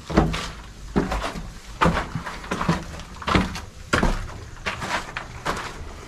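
Footsteps in a small bare room: a run of dull knocks, about one a second.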